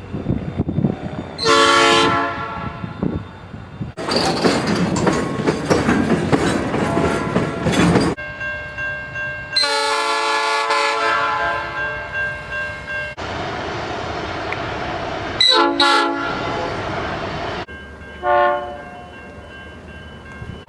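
A string of short clips of train horns sounding: a short blast near the start, a longer multi-tone horn chord in the middle, a couple of short blasts, then one more short blast near the end. Between the horns a passing train is heard running, and each clip cuts off abruptly into the next.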